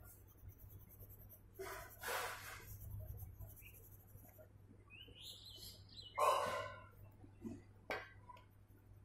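Birds calling: a few separate calls, with quick high chirps about five seconds in and a louder call just after six seconds.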